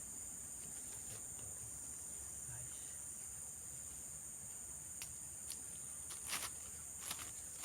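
Steady high-pitched chorus of insects, with a few faint short clicks or taps in the second half.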